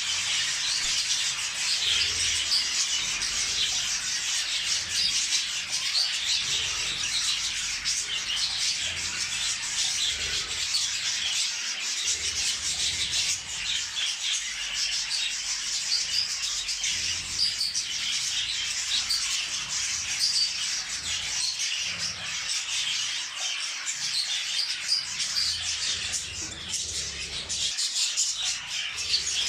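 Budgerigars chattering and warbling continuously, a dense run of quick chirps with no break.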